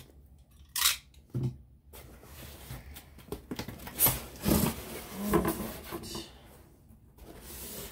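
Hands opening a cardboard subscription box: scattered rustles, scrapes and knocks of the cardboard lid and packing, loudest about four to five and a half seconds in.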